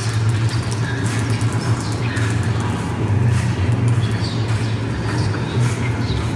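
The stage accompaniment for a dance: a steady low drone with scattered knocks and short high chirps over it.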